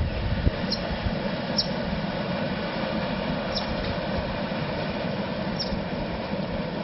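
Paddle steamer running along the river with a steady low rumble, and a short high chirp every two seconds or so.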